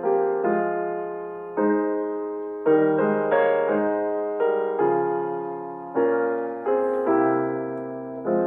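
Slow solo piano background music: sustained chords struck about once a second, each left to ring and fade before the next.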